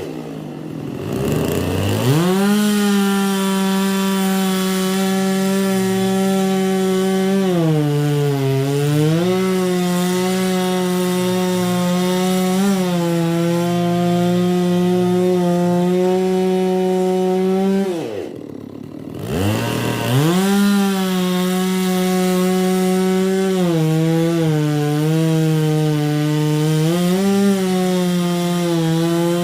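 Holzfforma G660 two-stroke chainsaw, a clone of the Stihl MS660, running at full throttle and cutting wood, its pitch sagging briefly several times as the chain takes load. Twice the throttle is let off and the engine falls almost to idle before revving back up: just at the start and about two-thirds of the way through.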